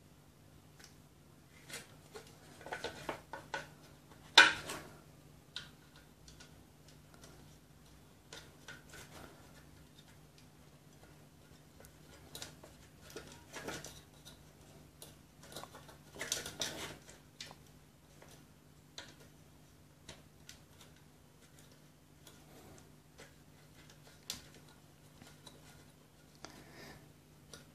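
Hands handling a small overload switch and the plastic base plate of a mixer grinder, pressing the switch into its mount: scattered plastic clicks, taps and rustles, with one sharp knock about four seconds in. A faint low hum runs underneath.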